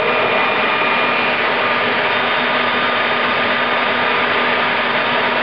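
Homemade turbojet built from a Caterpillar turbocharger, running at a steady speed: a loud, even rush of air with faint steady whining tones over it.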